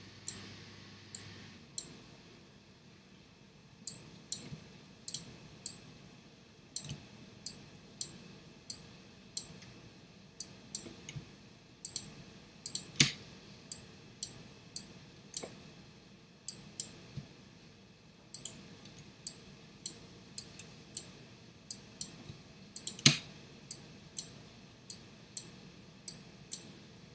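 Computer mouse clicking: single sharp clicks at an uneven pace, about one or two a second, with a pause of about two seconds shortly after the start and a couple of louder clicks. The clicks come as tracking points are placed one by one in the tracking software.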